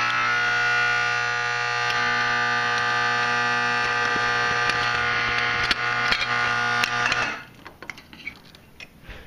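Faraday Vibratone 350-B1 vibrating horn sounding on 6 volts AC: a steady, harsh buzz with a low hum underneath. It cuts off suddenly about seven seconds in.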